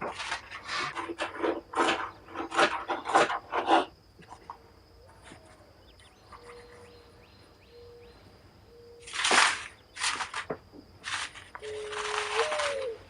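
Mourning dove cooing: soft low hoots in the middle, then a louder coo that swells up and falls near the end. Short bursts of rustling noise, louder than the cooing, come several times in the first few seconds and again later.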